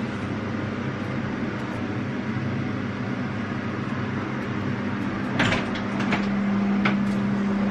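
Steady fan-like whirring with a low electrical hum, and a few light clicks and knocks from about five to seven seconds in.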